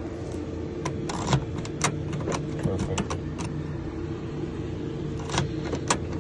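A newly cut car key being put into and worked in a Hyundai door lock, with the keyring jangling: a quick irregular run of small metal clicks, then two more clicks near the end, over a steady low hum.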